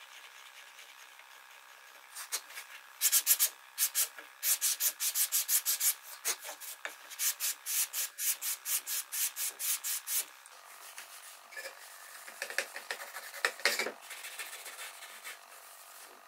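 Hand sanding of wood: sandpaper rubbed back and forth in quick even strokes, about three a second. It stops about ten seconds in and is followed by fainter, irregular rubbing.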